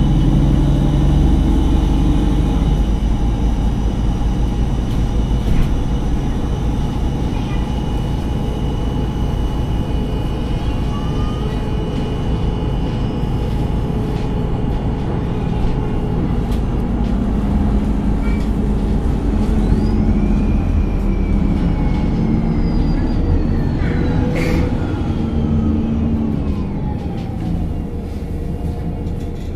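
MAN NG 273 T4 articulated city bus with an LPG engine, running under way with its engine note rising and falling. A whine slides down in pitch in the second half.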